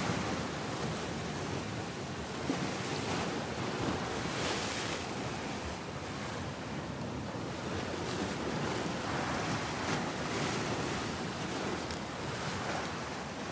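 Sea waves washing against a rocky shoreline, a steady rush that swells and eases gently, with wind buffeting the microphone.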